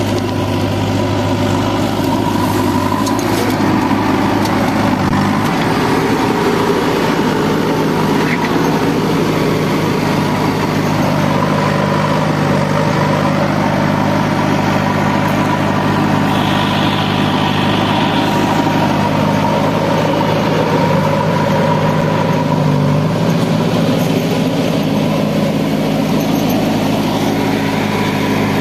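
Diesel engines of a farm tractor and a JCB backhoe loader running steadily at idle and low revs, the engine note shifting several times.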